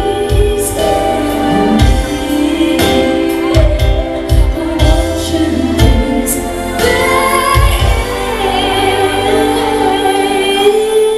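Live amplified music with a singer: a sung melody over a drum beat, with the final note held long while the drum thumps thin out near the end.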